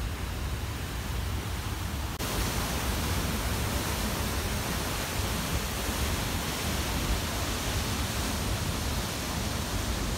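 Steady rushing of water. About two seconds in it turns louder and brighter: turbulent whitewater churning out of a river outlet.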